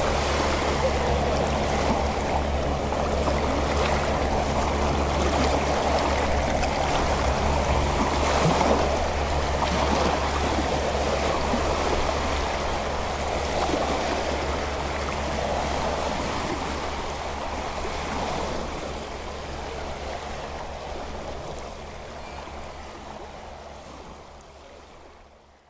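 Small sea waves lapping and washing, with a low steady hum underneath; the sound fades out gradually over the last several seconds.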